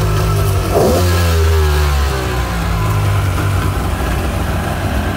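Two-stroke engine of a 2002 Polaris Virage TX personal watercraft running at a fast idle on freshly rebuilt Keihin CDK2 carburetors, its pitch drifting up and down slightly, with a short louder burst about a second in.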